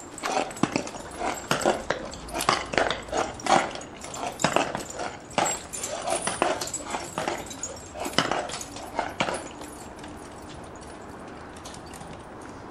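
Heavy Shire dray horses stand in brass-decorated harness on brick paving, making a dense, irregular run of clicks and knocks from shifting hooves and jingling harness chains and fittings. The sounds thin out about ten seconds in.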